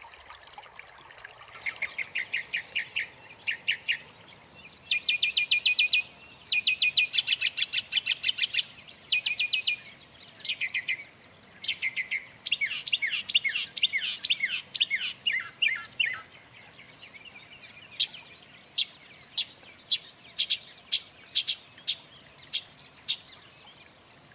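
Songbird singing: a series of different phrases, each a quick run of the same high note repeated many times, some of them falling slurs. In the last several seconds it gives single sharp notes about a second apart.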